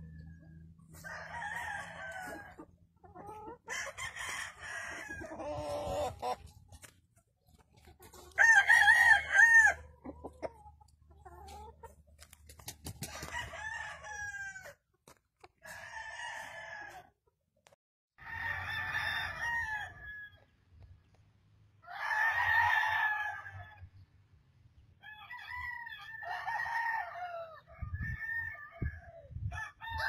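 Gamefowl roosters crowing one after another, about ten crows in turn, some loud and close and others fainter from birds further off.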